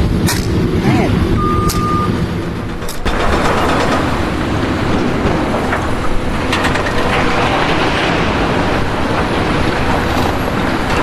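A heavy engine running, with a single short beep about a second and a half in. About three seconds in the sound changes abruptly to a rougher, noisier mechanical din.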